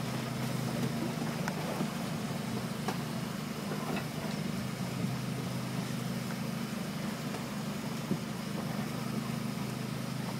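Fishing boat's engine running with a steady low drone, under a constant hiss of wind and sea, with a few faint clicks and knocks from the deck.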